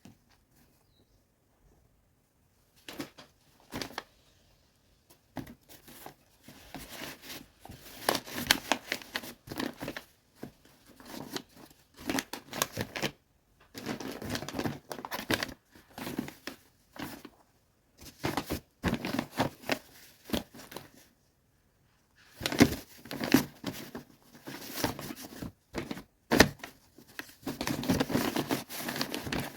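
Irregular rustling and crinkling from something being handled, in bursts separated by short pauses, starting about three seconds in.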